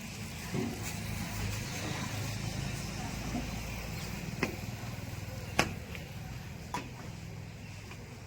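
Diesel engine of a backhoe loader or tractor running steadily at low revs. Three sharp clicks or knocks come about a second apart in the second half.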